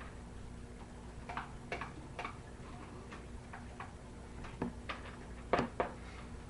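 Irregular clicks and taps of a spoon scraping and knocking against a bowl while the melted chocolate and peanut butter mixture is scraped out over the cereal. The loudest knock comes about five and a half seconds in.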